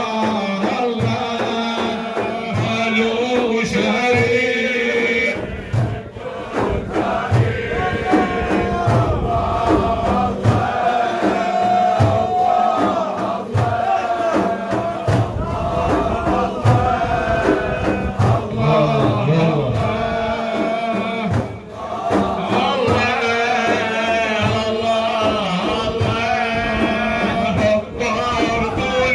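Sufi dhikr chanting: men's voices sung over a steady rhythmic beat.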